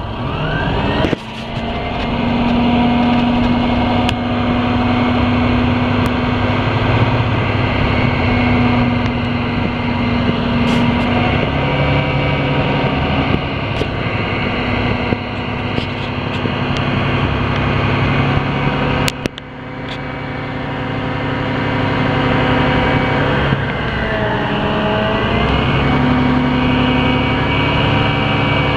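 2005 International 7600 roll-off truck's diesel engine running steadily while its hydraulic hoist raises the roll-off frame. The hum shifts pitch several times as the load on it changes, with a brief dip in level about two-thirds of the way through.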